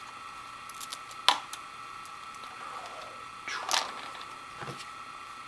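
Light handling noises from unpacking headphones: a sharp click about a second in, a brief rustle a little past the middle and a small knock soon after, over a faint steady high whine.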